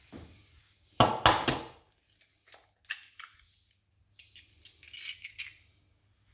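An egg being cracked and opened into a plastic mixing bowl: a few sharp knocks about a second in, then lighter clicks and taps as the shell is handled and the egg drops in.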